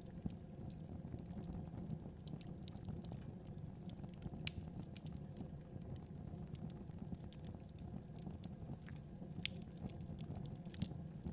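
Wood fire burning with a steady low rush of flames and irregular crackles and pops, a few louder snaps about four and a half seconds in, near nine and a half seconds and near the end.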